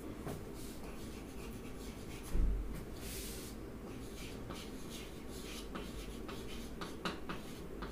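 Chalk writing on a chalkboard: short scratching strokes and light taps of the chalk against the board. A low thump about two and a half seconds in is the loudest sound.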